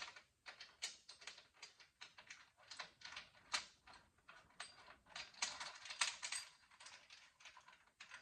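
Irregular light metallic clicks and clinks of hand tools and hardware as fasteners are put back on a bench vise, with a quick flurry of clicks about two-thirds of the way through.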